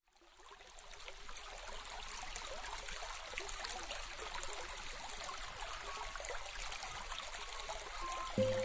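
Steady hiss of ambient noise with faint scattered ticks, fading in over the first second or two. A sustained music note comes in right at the end.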